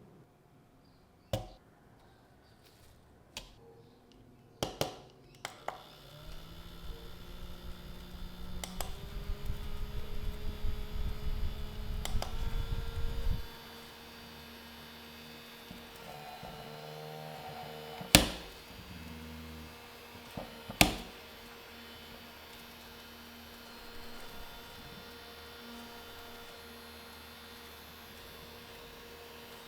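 Mini desk fan: a few clicks, then its motor starts with a rising hum about six seconds in, its airflow buffeting the microphone for several seconds. After that the motor hums steadily, with two sharp clicks partway through.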